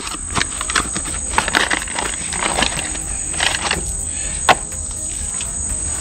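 Rustling and light clicks of a new saw chain being taken out of its cardboard box and handled, with one sharper click about four and a half seconds in. A steady high-pitched hum runs behind it.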